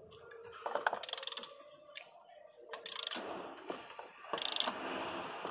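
Ratchet wrench clicking as the engine's crankshaft is turned slowly by hand: three short bursts of rapid clicks, about a second in, near the middle, and towards the end.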